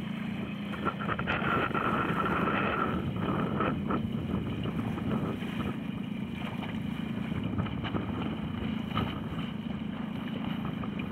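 Wind buffeting the microphone over the steady noise of a boat under way on the water, with a constant low hum underneath.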